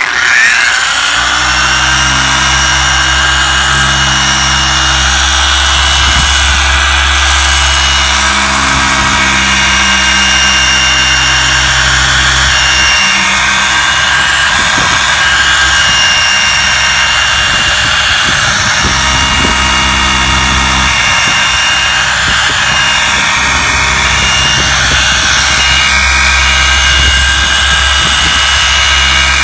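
Rupes Mini Bigfoot random-orbital polisher spinning up, then running steadily with a high motor whine as its foam pad buffs compound into a smooth plastic fender flare. The machine is on a low speed setting of 2.5.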